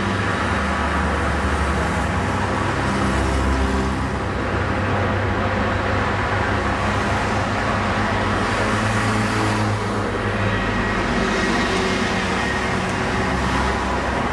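A motor vehicle's engine and road noise, heard as if riding in it: a steady loud rush with a low engine note that shifts in pitch a few times. It cuts in abruptly.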